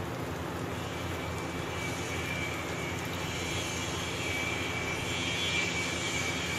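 A steady whooshing hum with a thin high whine that grows a little stronger about two seconds in, like a fan or burner running in a kitchen.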